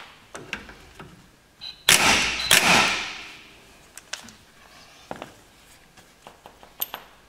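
Power impact wrench with a 24 mm socket spinning the axle nut off a rear stub axle: a loud rattling burst in two pulls about two seconds in that dies away within a second or so. Light clicks and clinks of the nut and socket follow.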